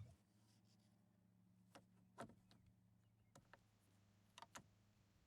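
Faint, scattered clicks and taps of plastic glove-box parts being handled and snapped back into place, about six in all, over a steady low hum.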